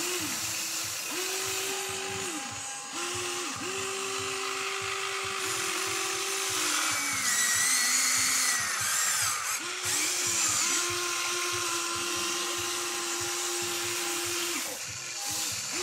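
Huina 1594 radio-controlled excavator's electric motors whining as it digs and lifts soil, each boom, arm and bucket movement starting and stopping with the pitch sliding up or down. A higher-pitched whine joins for a couple of seconds around the middle.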